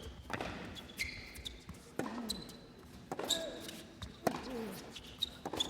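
Tennis rally: the ball struck by rackets and bouncing about once a second, each shot followed by a short grunt from the player, with brief shoe squeaks on the court.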